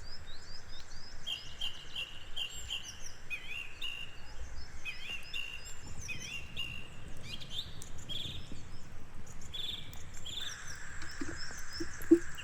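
Several small songbirds chirping and singing in quick, gliding phrases over a steady outdoor background hiss. About two seconds before the end a higher steady hiss joins in, and a few short low notes follow, one of them sharp and loud.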